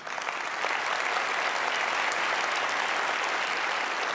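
A large audience applauding, many hands clapping steadily.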